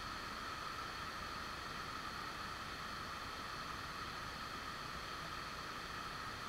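Steady, even rush of water falling from a rocky waterfall, mixed with the hiss of an action camera's microphone.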